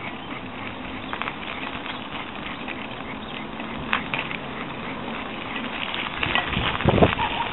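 Bicycle riding along a paved trail: steady rolling and rustling noise with scattered light clicks and rattles, swelling into a louder low rumble near the end.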